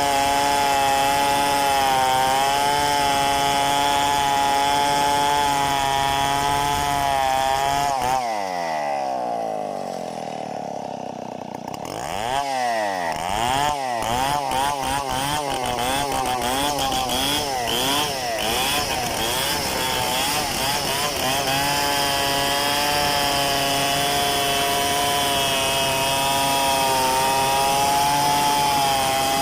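Large two-stroke chainsaw milling a log freehand, running steadily at full revs under cutting load. About eight seconds in it drops to idle for a few seconds. It then revs up and down in quick blips before settling back into a steady full-throttle cut.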